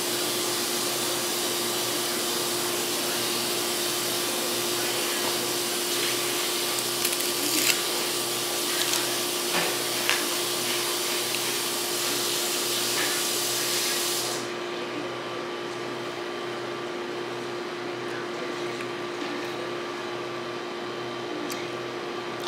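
Steady whooshing appliance noise with a constant low hum, typical of a motor or fan running in a small shop. The hiss cuts off about fourteen seconds in, leaving the hum. A few light clicks come in the middle.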